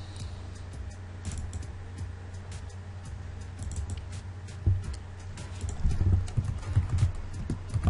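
Computer mouse and keyboard clicks at a desk, irregular and scattered, over a steady low hum. From about halfway through, soft low thumps join in.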